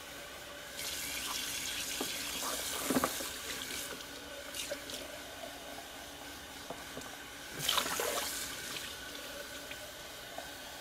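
Soapy rinse water pouring from a portable blender jar and splashing into a stainless steel sink, with louder splashes about three seconds in and again near eight seconds.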